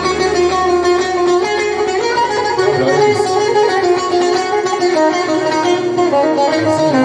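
Buzuq, the long-necked Levantine lute, played with a plectrum: an instrumental melodic phrase of plucked notes stepping up and down in pitch, filling the gap between the singer's ataba lines.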